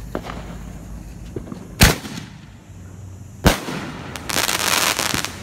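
Consumer aerial firework going off: two sharp bangs about a second and a half apart, then a burst of dense crackling near the end as the red star shell spreads its sparkling trails.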